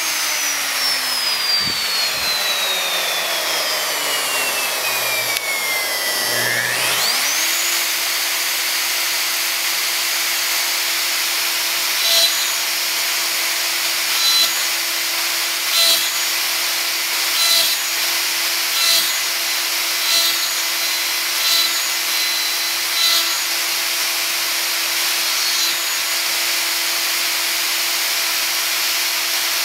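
Plunge router with a quarter-inch straight bit running. Its whine falls steadily in pitch for about six seconds, then climbs quickly back to full speed. It then runs steadily, with repeated short plunge cuts into the wood about every second and a half in the second half.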